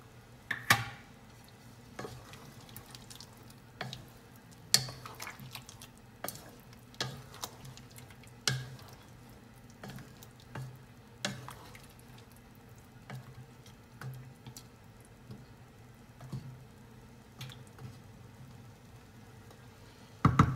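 Wooden spatula stirring thick curry sauce in a metal pot: irregular knocks and scrapes against the pot about every second, with a louder knock near the end.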